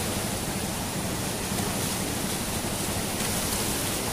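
Muddy floodwater rushing and churning in a steady, continuous rush as it overflows a weir beyond its capacity and spills across the ground.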